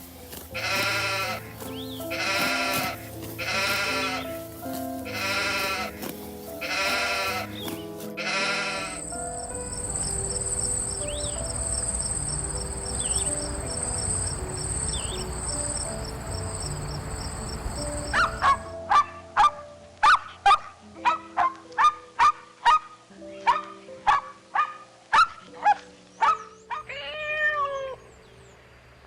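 Goats bleating repeatedly, about once a second, over soft background music. Then a steady hiss with a high whine lasts about ten seconds, followed by a quick run of short, sharp clicking calls.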